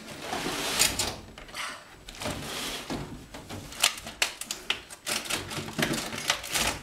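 Belongings being shoved and wedged into a crammed space while packing: a quick, irregular run of clicks, knocks and scrapes with rustling, the clicks coming thickest in the second half.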